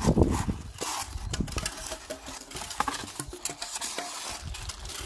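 Cardboard-box packaging being handled: a plastic-wrapped speaker in polystyrene foam inserts is lifted out of the box, with irregular rustling and light knocks, loudest in the first half-second.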